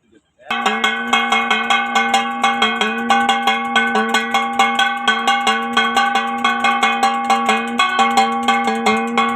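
Loud, bell-like percussive music: a quick, even beat of struck metallic-sounding notes over steady held tones. It starts abruptly about half a second in and cuts off suddenly near the end.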